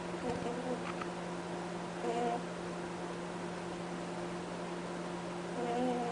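Sleeping pet rabbit snoring: three short pitched honks, one in the first second, one about two seconds in and one near the end, over a steady electrical hum.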